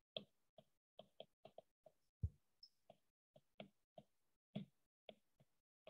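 Faint, irregular clicks of a stylus tip tapping on an iPad's glass screen while handwriting, about three a second, with one louder tap a little after two seconds in.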